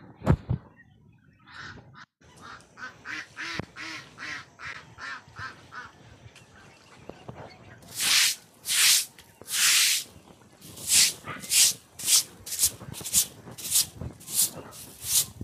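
A flock of ducks calling, a run of short repeated quacks about two a second, then from about halfway a series of loud swishing hisses in a steady rhythm, about two a second.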